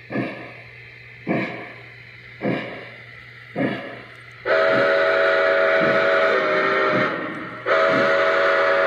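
Onboard sound system of a Lionel O-gauge Pere Marquette 1225 Berkshire model steam locomotive: slow steam chuffs, about one a second, as the engine creeps along. About four and a half seconds in, the steam whistle blows a long blast of several tones, pauses briefly, then blows again, with the chuffing continuing underneath.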